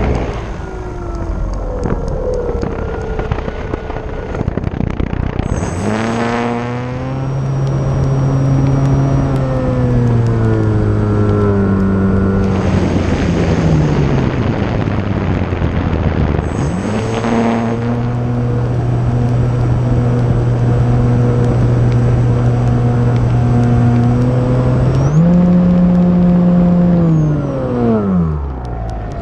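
The brushless electric motor and propeller of an E-flite Timber RC plane, heard from on board: a steady whine that rises and falls with the throttle. While the throttle is eased off, wind rushes over the airframe.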